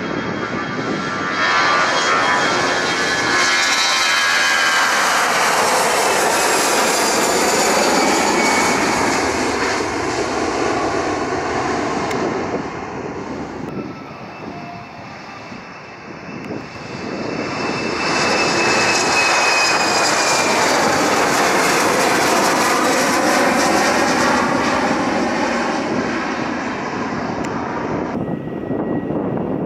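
Two jet airliners taking off one after the other: an Airbus A320-family jet's engines at takeoff power as it rolls past, dying away, then a British Airways Embraer E-Jet spooling up and rolling past at takeoff thrust. Each pass is a dense engine noise with a high whine that slowly falls in pitch.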